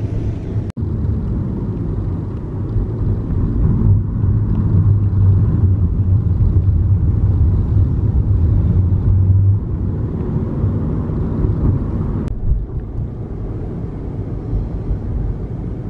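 Road and engine rumble heard inside the cabin of a moving car, a steady low noise that swells for several seconds in the middle and drops back after that.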